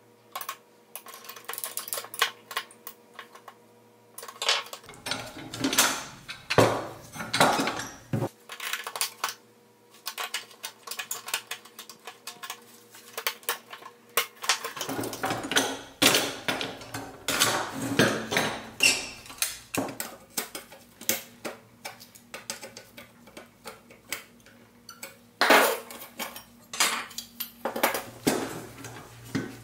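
The pressed-steel body of a 1930s Marx toy dump truck being taken apart by hand tools. There are irregular metallic clicks, taps and scrapes as a pointed tool pries at the body tabs and pliers work them open. The clatter comes in busy spells, the first about five seconds in and a longer one from about halfway.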